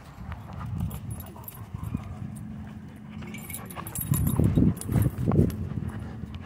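A dog making low sounds in three short bursts a little past the middle, over a steady low rumble.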